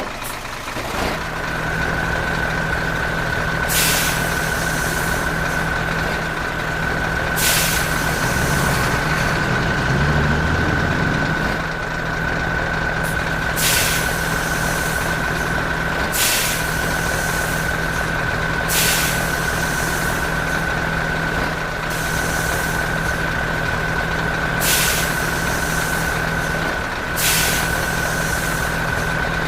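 Heavy truck engine running steadily with a constant high-pitched whine over it, and short sharp hisses of air every few seconds, like air-brake releases. The engine note shifts briefly about ten seconds in.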